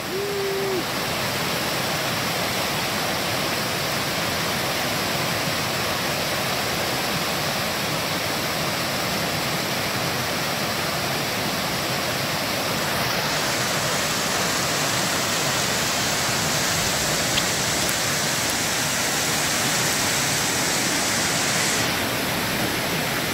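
Fast mountain creek rushing over rocks and a small cascade: a steady, even roar of whitewater. Its hiss sharpens for a stretch in the second half and settles back near the end.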